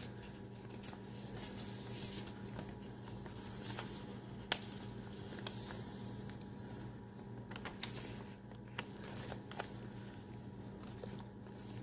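Paper rustling: the pages and loose papers of a handmade junk journal being handled, slid out of an envelope and turned, with scattered soft taps and clicks.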